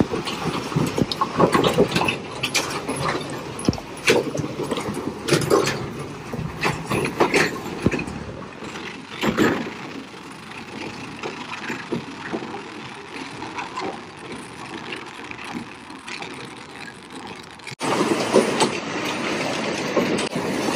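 Loaded Tata Signa 4923 tipper trailer truck rolling slowly through potholes and puddles on a muddy dirt road: diesel engine running under irregular knocks and rattles from the body and trailer. The noise eases off midway and comes up louder again near the end.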